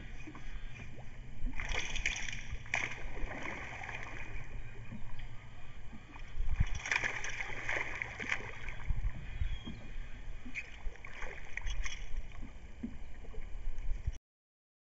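A hooked river bass splashing at the water's surface beside the boat as it is reeled in, in three bursts of splashing. The sound cuts off suddenly near the end.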